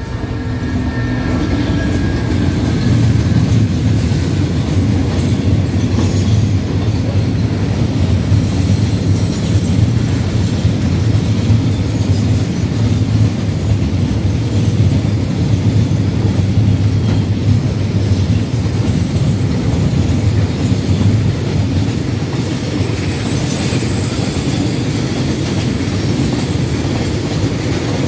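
Diesel-hauled freight train of oil tank wagons passing close by. The rumble builds over the first couple of seconds as the locomotive comes past, then holds as a steady low rumble of wheels on the rails while the tank cars roll by.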